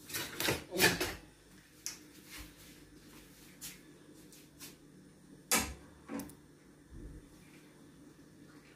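Kitchen handling noises: a series of separate knocks and clatters as things are picked up and set down at the stove, a quick cluster in the first second and a sharp knock about five and a half seconds in, with quieter taps between.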